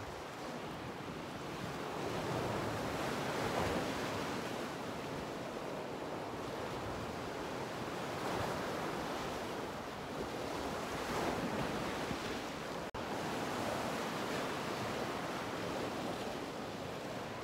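Ocean surf breaking and washing over shoreline rocks: a steady rush of water that swells and eases every few seconds.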